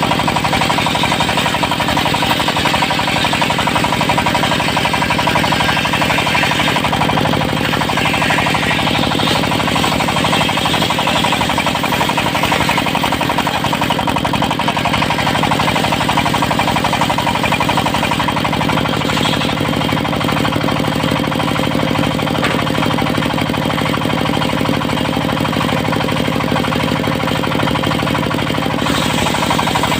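Diesel engine of a portable circular sawmill running steadily with a rapid, knocking clatter while the saw rips a teak log into beams.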